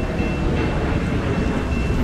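Steady low rumble of an approaching passenger train, with a thin high tone that breaks on and off above it.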